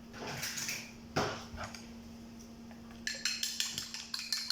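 An egg being beaten in a bowl: a utensil clicks rapidly against the bowl from about three seconds in. A single sharp knock comes about a second in.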